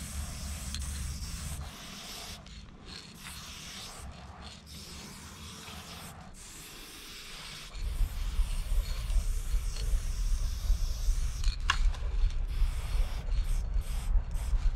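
Aerosol spray-paint can hissing in bursts with short breaks between them. Under it runs a low rumble that eases off about two seconds in and comes back louder past halfway.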